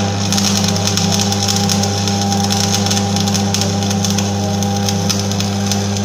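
Electric arc welding on a steel frame: the arc crackles and sputters without a break, over a steady low electrical hum.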